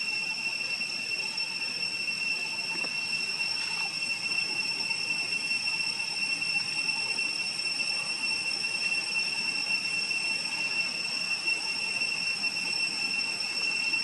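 Insects droning outdoors: a continuous high-pitched whine held at one steady pitch, over a faint background hiss.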